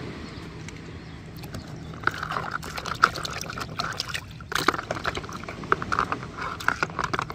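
Liquid splashing and trickling as a plastic action figure is dunked and moved about in a plastic bowl of coloured liquid, in short irregular splashes from about two seconds in.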